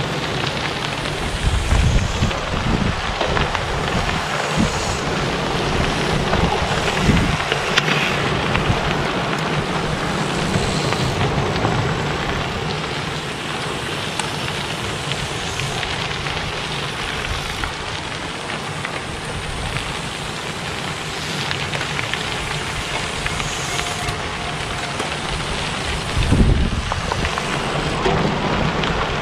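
Many bicycle tyres rolling over a gravel road, a steady crackling hiss of crunching gravel as a large group of riders passes, with a few low rumbles of wind on the microphone.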